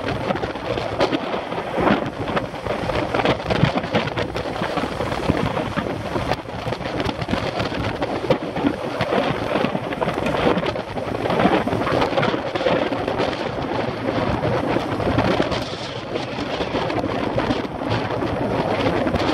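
Loud wind noise buffeting the microphone of a camera riding along on a road bike at about 26 to 27 mph, an uneven rushing noise that gusts and flutters constantly.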